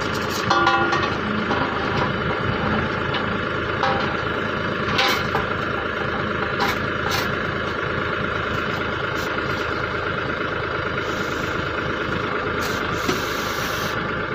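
Engine of a crash barrier installation machine running steadily, with a few short sharp clanks scattered through.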